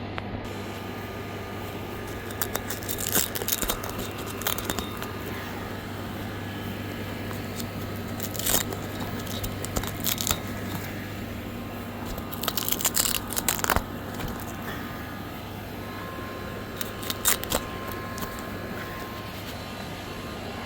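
Velcro straps holding the canopy fabric to the gazebo frame being pulled open, several short tearing rips, with a cluster of them past the middle, over a steady low hum.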